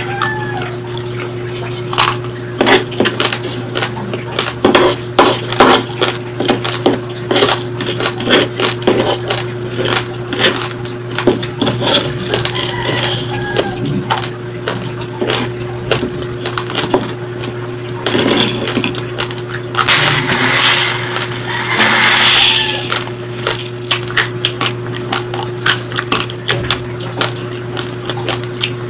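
Close-miked crunching of raw, uncooked white rice grains being chewed with peanut butter: many sharp, irregular cracks and clicks, with a longer rustling burst around twenty seconds in. A steady low hum runs underneath.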